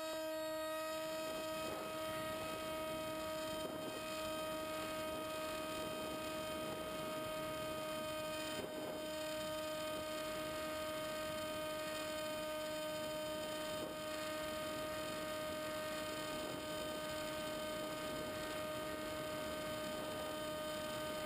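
Electric pusher motor and propeller of a Multiplex EasyStar radio-controlled plane running under power, recorded from a camera on the plane: a steady whine that holds one pitch, with a light rush of air under it.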